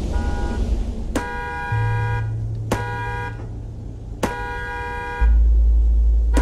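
Animated-film soundtrack: a horn-like tone sounds about every second and a half, each time starting with a click, over a deep bass drone that drops to a lower, louder note about five seconds in.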